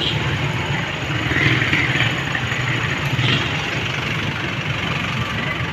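Street traffic: a steady low rumble of motor vehicle engines running nearby, with a few brief swells as vehicles pass.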